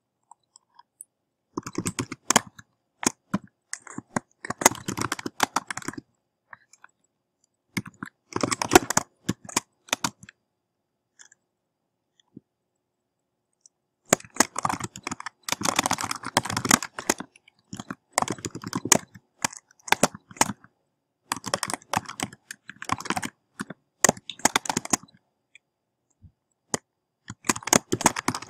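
Computer keyboard typing: bursts of rapid keystrokes separated by short pauses, with a longer pause of a few seconds about a third of the way in.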